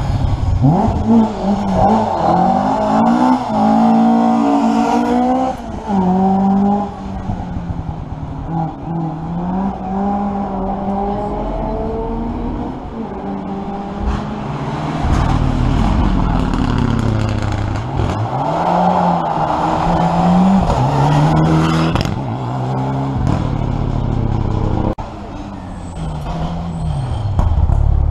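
Rally car engines revving hard as the cars climb the stage, the pitch sweeping up and dropping back again and again with each gear change and corner. A second car climbs toward the listener near the end.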